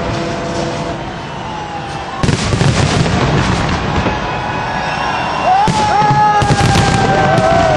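Fireworks display: aerial shells bursting in sharp bangs with crackling in between, the bangs clustering over the second half. A long whistle slides slowly down in pitch over the last couple of seconds.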